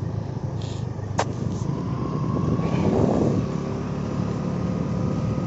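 A road vehicle's engine and road noise while driving, a steady low rumble with a faint steady whine. There is a single sharp click about a second in.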